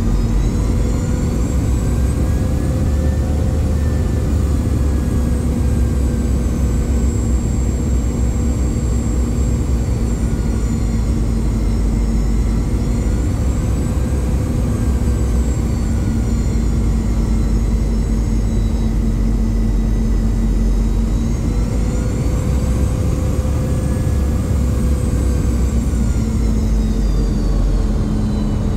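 Rolls-Royce BR715 turbofans of a Boeing 717 heard from inside the cabin beside the engine on final approach: a steady low rumble with a high engine whine that rises and falls slowly as the thrust changes.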